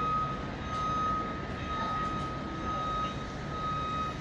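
Warning alarm tone from a construction vehicle or site machine. The single high tone sounds almost continuously with brief breaks, over a low rumble of traffic.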